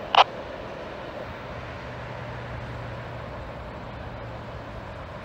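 Steady distant rumble of a Norfolk Southern mixed freight train running away down the line. Just after the start comes one short, sharp burst of noise from a scanner radio, ending the defect detector's automated 'no defects' transmission.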